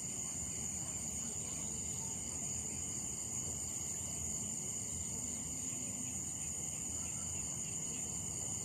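Crickets trilling in a steady high-pitched chorus.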